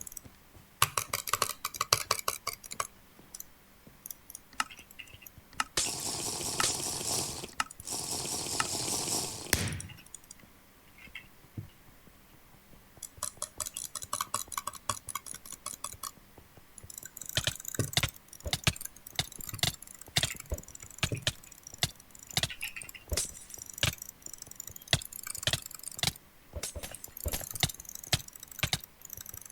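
A mouse button clicking in quick bursts, double and triple clicks fired by a macro. About six seconds in, two long runs of clicks come so fast that they blur into a continuous rattle.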